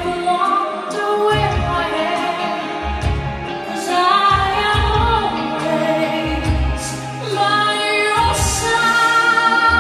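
Music: a song with a woman singing a gliding melody over deep bass notes that come and go.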